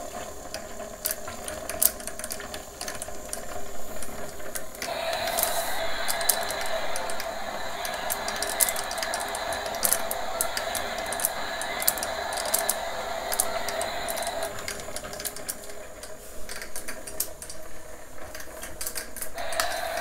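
Small motor of a Discovery Kids Tornado Lab running at top speed to spin its water vortex, with rapid mechanical clicking and rattling. A hissing noise comes up over it from about five seconds in, drops away at about fourteen seconds, and returns near the end.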